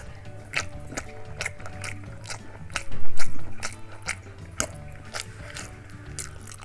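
Close-up eating sounds: short wet mouth clicks and smacks as dumplings in sauce are chewed and fingers licked, over background music. A brief loud noise rises about three seconds in.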